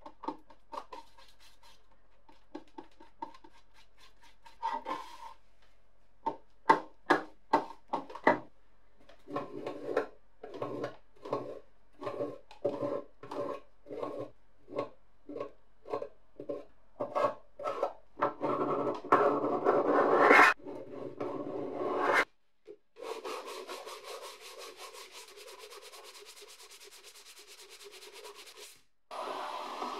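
A spreader scraping and smearing body filler over a sheet-metal panel in repeated strokes, a little more than one a second. It ends in a stretch of steady sanding on the filled metal.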